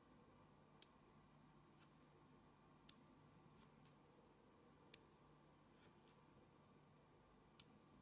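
Small metal magnet balls snapping together as clusters are joined: four sharp clicks, about two seconds apart.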